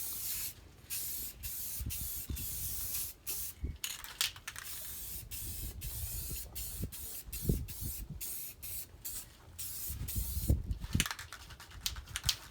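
Aerosol spray can of clear coat hissing in a run of bursts, the nozzle pressed and released again and again with short breaks, over some low rumbles and thumps.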